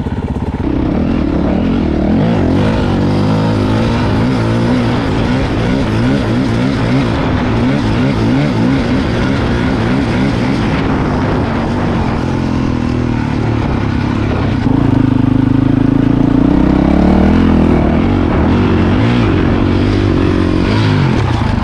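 Dirt bike engine under way, its pitch rising and falling as the throttle is worked, over a steady rushing noise. About two-thirds of the way through it gets louder and holds a steadier pitch.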